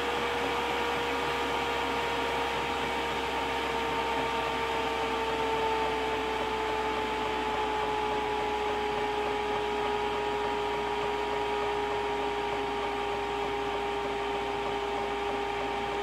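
Chinese diesel heater running, its blower fan making a steady rushing whine that slowly falls in pitch as the controller backs off the fan speed toward the set point in the normal run state.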